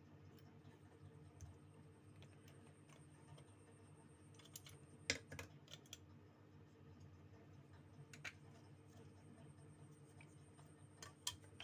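Near silence: a low steady hum with a few scattered small clicks and taps, the sharpest about five seconds in and a pair near the end.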